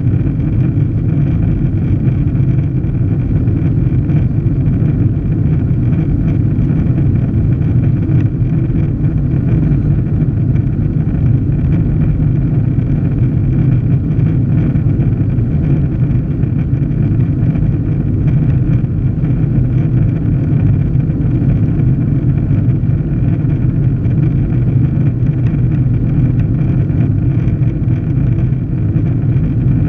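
Jet airliner cabin noise during the climb after takeoff: the engines and rushing air make a steady, loud, low rumble with a faint high hum above it, heard from inside the cabin.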